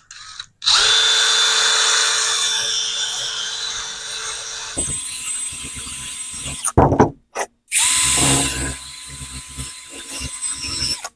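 Handheld power drill spinning a wire wheel to clean rust off brake caliper hardware. It whines steadily, then runs at a higher pitch about five seconds in. A few knocks come near the middle before it runs again.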